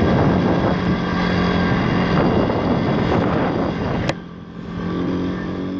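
Pit bike's YX 160cc single-cylinder four-stroke engine running steadily under way, mixed with loud wind and road noise. About four seconds in the noise drops sharply with a click, leaving a quieter sound.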